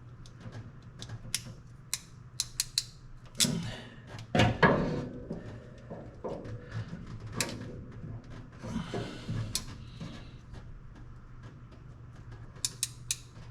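Hands working a wire terminal into a truck's plastic bulkhead connector: scattered small clicks and taps with bursts of rustling handling, over a faint steady hum.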